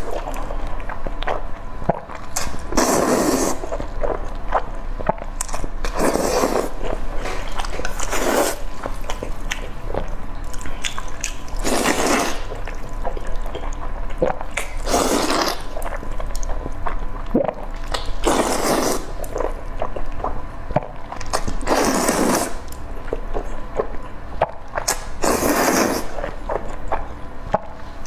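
Close-miked eating: a loud, noisy mouthful sound roughly every three seconds, with wet chewing clicks in between.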